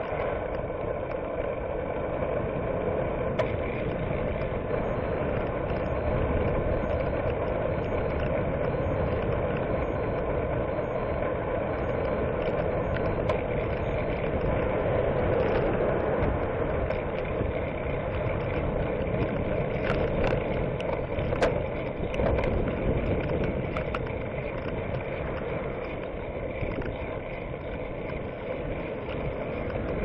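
Steady wind and road noise picked up by a camera on a moving bicycle, with motor traffic passing on the road. A few sharp clicks come about twenty seconds in.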